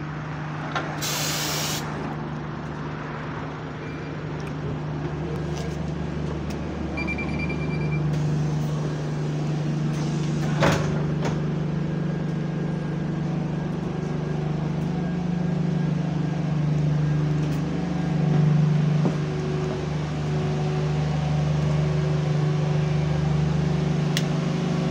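Alexander Dennis Enviro200 bus's diesel engine idling steadily at a stop. There is a short burst of pneumatic air hiss from the brakes or doors about a second in, a brief electronic beep around 7 seconds, and a sharp click near 11 seconds.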